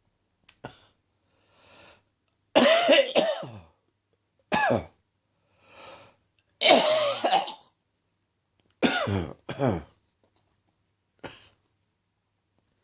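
A person's chesty morning cough coming in irregular bouts: about six coughs, two of them long, harsh and loudest, a quick pair near the end, with quieter breaths drawn in between.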